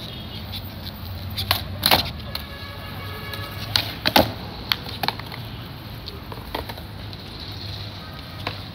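Skateboard rolling on smooth stone pavement, with sharp clacks of the tail popping and the board landing, loudest a little before two seconds in and again around four seconds in, where a frontside pop shove-it is done. A few lighter board knocks follow.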